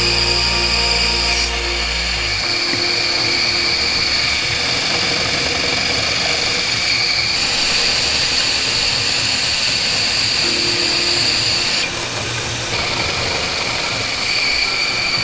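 Machine-shop noise: a vertical milling machine's motor hum over steady high machine whine. The low hum cuts off about two seconds in, and the whine keeps running and shifts in level a few times.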